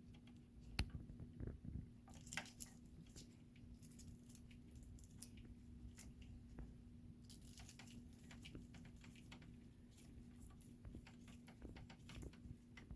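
Faint, scattered clicks and scratchy rustles of wires being twisted together under a wire nut, over a faint steady hum.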